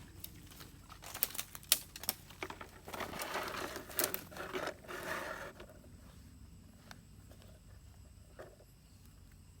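Rustling and crinkling with several sharp clicks for a few seconds, as of something being handled, then it dies down to a low background.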